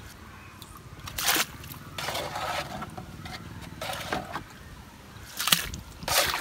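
Water sloshing and splashing in a handful of short bursts, one every second or so.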